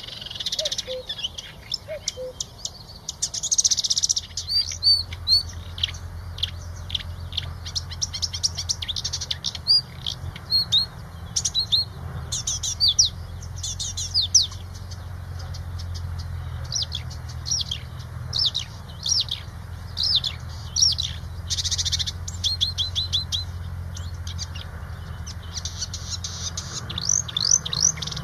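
A songbird singing a rapid, varied run of short, high, downward-sweeping chirps and trills. A steady low hum sits underneath from a few seconds in until near the end.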